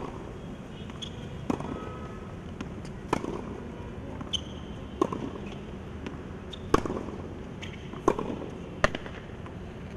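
Tennis ball being struck by rackets and bouncing on a hard court during a rally: sharp pops every second or two over steady outdoor background noise.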